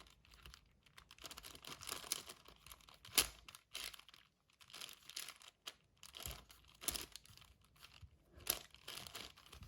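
A 6x6 Rubik's cube being turned by hand: irregular scraping of its plastic layers sliding, with several sharper clacks.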